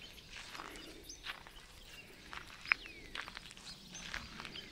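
Birds calling outdoors, with short chirps and one falling whistled call about three seconds in, over light footsteps on dry grass.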